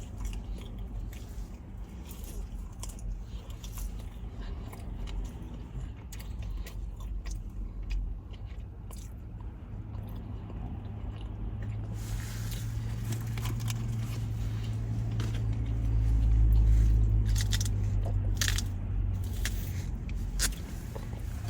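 Close-miked eating: biting into and chewing fried chicken tenders, with crisp crunches and wet mouth sounds. A low rumble swells through the second half and peaks about two-thirds of the way in.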